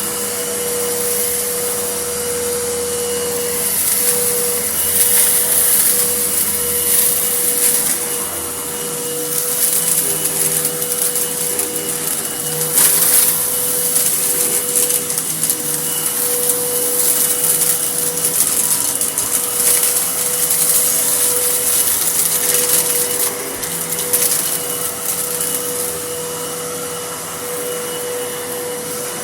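Vacuum cleaner running with a steady motor whine under a strong airy hiss. The hiss surges and crackles now and then as it sucks up dust and grit, most strongly about halfway through.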